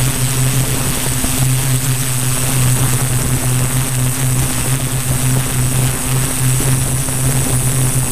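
Multirotor drone's electric motors and 15x5.5 propellers running steadily in flight, heard from the onboard camera as a low, wavering hum with a thin high whine over it. Wind buffets the microphone, making a rough rushing noise underneath.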